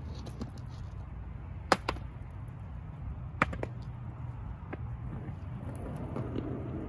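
Skateboard clacking on a concrete path: two quick pairs of sharp knocks, the second pair about a second and a half after the first, then a fainter knock. Near the end the wheels roll over the rough concrete.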